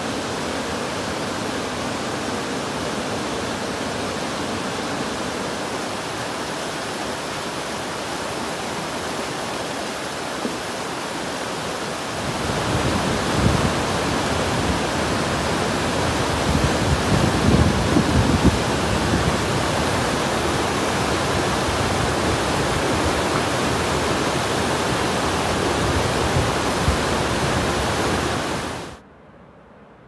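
Floodwater of Taughannock Creek rushing steadily after heavy rain. About twelve seconds in it gives way to the louder, deeper rushing of Taughannock Falls in high flow, which cuts off just before the end.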